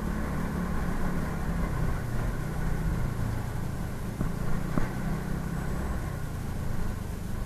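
Motorcycle engine running steadily at low speed, heard from on the bike, with a short click about halfway through.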